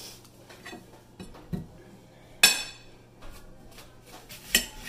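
Kitchen knife clinking and knocking against a ceramic plate as an onion is cut on it: a few light knocks, and two sharp clinks, the loudest about halfway with a brief ring and another near the end.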